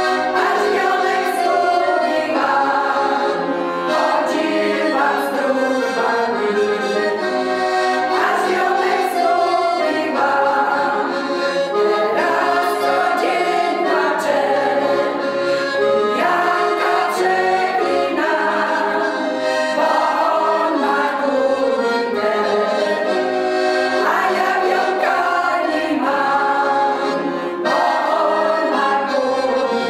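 A small women's folk choir singing a Polish folk song together, accompanied by a piano accordion.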